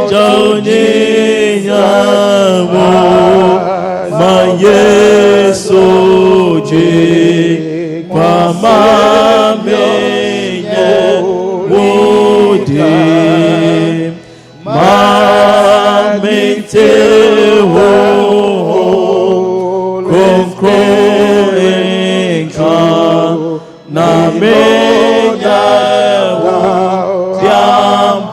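Singing of a church song in phrases a few seconds long with short breaks between them, over steady held low notes.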